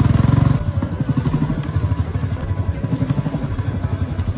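Royal Enfield Bullet 350's single-cylinder engine running through a loud aftermarket silencer. It drops from a higher rev to a slow, even beat of separate exhaust pulses about half a second in.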